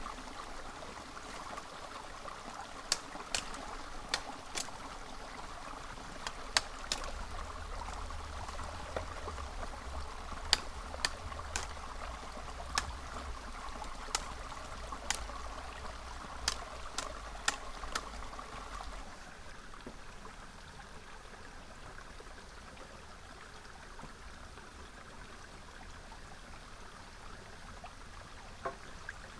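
Small river stream flowing steadily. About fifteen sharp knocks sound over the first two-thirds, after which the water continues on its own, a little quieter.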